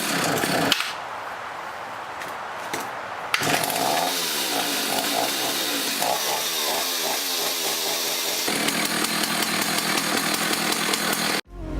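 Husqvarna L65 two-stroke chainsaw running after being revived on fresh two-stroke mix. It drops back to a quieter idle about a second in, is revved up and down repeatedly from about three seconds in, and then runs hard. The sound cuts off suddenly near the end.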